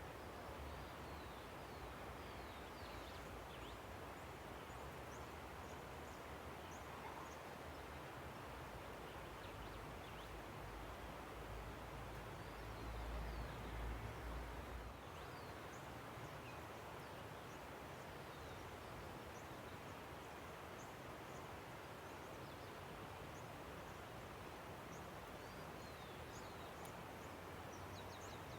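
A river rushing steadily, with small birds chirping in short high calls scattered throughout. A low rumble swells for a couple of seconds about halfway through.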